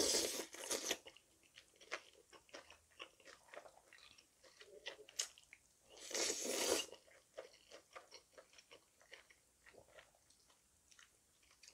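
A person slurping spicy cold naengmyeon noodles, two loud slurps about six seconds apart, with wet chewing in short clicks between them.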